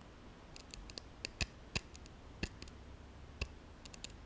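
The sharp point of a stainless steel multi-tool blade scratching across the tool's handle scale, giving a series of short, sharp, irregular clicks. The hard metallic sound is taken for aluminium: the scales are not G10 as claimed.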